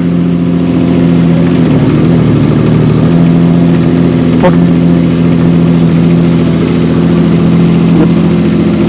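Kubota mini excavator's diesel engine running steadily while its hydraulics swing and raise the boom; the engine note dips briefly about two seconds in, then steadies.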